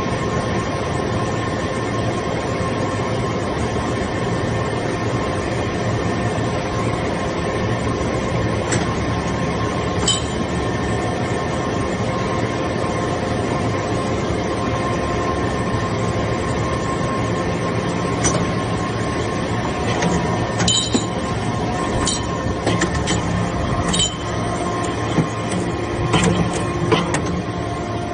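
Iron shaving baler press running: a steady machine hum holding several even tones. Scattered sharp metallic clinks and knocks come in from about the middle onward.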